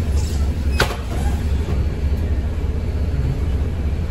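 ADL Enviro200 MMC single-deck bus running, heard from inside: a steady low engine and road rumble, with one sharp knock or rattle a little under a second in.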